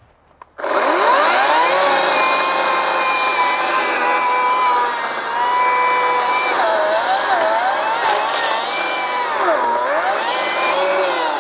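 Ryobi 40V brushless 18-inch battery chainsaw (RY40580) whirring up to speed about half a second in and cutting into a tree stump. Its whine holds steady, then dips in pitch twice as the chain bogs in the wood. It is running a chain the owner thinks is dull, which is making the cut smoke.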